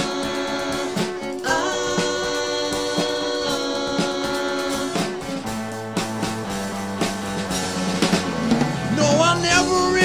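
A rock band playing an instrumental passage: held guitar chords over a steady drum beat, with a bass line coming in about halfway and a wavering lead melody near the end.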